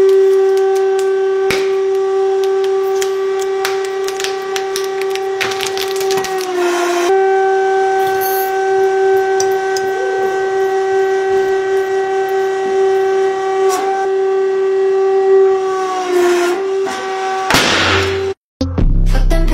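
Hydraulic press pump whining at a steady pitch, the whine sagging briefly twice as the ram takes load. Sharp cracks and snaps of objects, such as plastic tubs, being crushed come over it, with a short noisy burst near the end.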